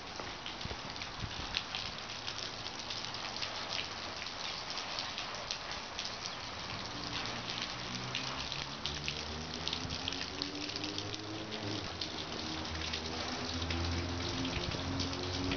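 Rainwater dripping and running off a concrete railroad bridge, a dense patter of drips and splashes over a steady wash of water. From about halfway through, a low droning hum comes in, rising slightly in pitch and growing louder.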